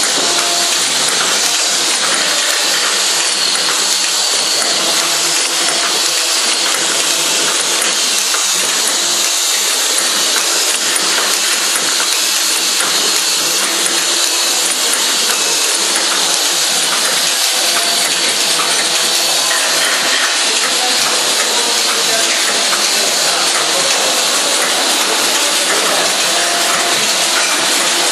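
Automatic cap assembly machine running, with a steady, dense clatter of many caps clicking and rattling against each other and the machine as they are fed and assembled.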